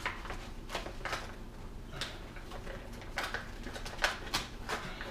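Scattered light clicks and rustles of a toy blaster's cardboard box and plastic packaging being handled as foam darts are worked free, with the sharpest click about four seconds in.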